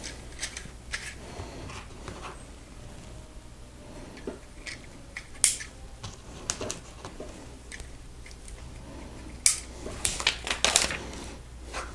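Plastic LEGO pieces clicking and rattling as they are handled and pressed together: scattered sharp clicks, a loud one about five and a half seconds in and a quick run of clicks near the end.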